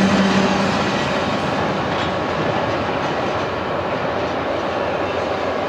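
Rolling noise of a freight train of empty intermodal well cars as its last cars pass and move off. The noise eases slightly about a second in, then holds steady.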